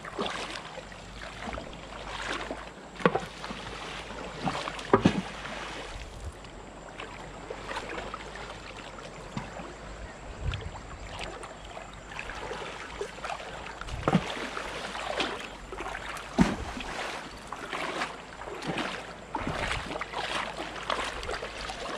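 Water sloshing and splashing as people wade through a shallow, rocky stream, with irregular sharper splashes here and there over the stream's steady flow.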